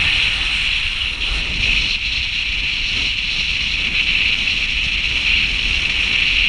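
Car driving down an unpaved, snowy mountain road: a steady hiss of tyre and wind noise over a low rumble.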